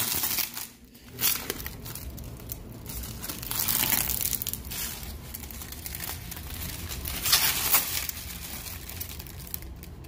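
Blue plastic protective film being peeled off a stainless steel microwave casing, crinkling and tearing in irregular surges, loudest about four seconds in and again about seven seconds in.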